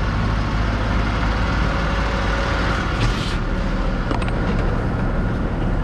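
Forklift engine idling steadily, with a couple of brief knocks about three and four seconds in.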